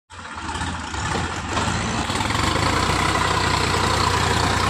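Sonalika 4WD tractor's diesel engine running, building in loudness over the first two seconds and then holding steady.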